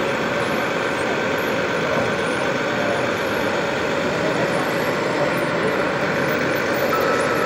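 Radio-controlled model vehicles running, a steady, even mechanical noise without pauses.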